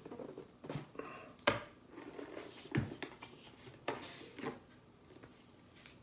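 A cylindrical coffee canister being opened by hand: a few sharp clicks and knocks from the lid and container, the loudest about one and a half seconds in, with light rustling of packaging in between.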